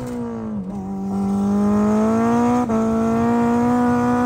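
Turbocharged Honda Integra (DB8) four-cylinder engine at full throttle on a hard pull. Its note dips about half a second in, then climbs steadily as the revs rise, with a brief break about two and a half seconds in before it holds high.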